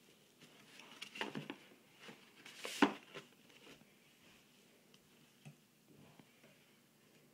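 Scattered light taps and knocks on a cardboard box of board books as small hands pat and rummage in it, with the loudest knock a little under three seconds in.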